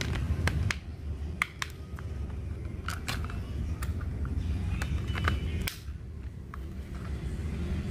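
Scattered light plastic clicks and taps as small plastic wing and tail pieces are handled and fitted onto toy airplanes, over a low steady background rumble.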